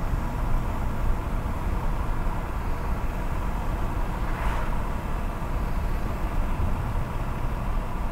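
Steady road noise of a moving car, heard from inside it: tyre and wind noise over a low rumble, with a brief swell about halfway through.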